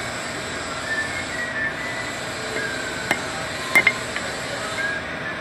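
A few sharp metal-on-metal clinks as steel pieces are struck or set down on a small steel plate stand: one about three seconds in, then a quick double just before four seconds.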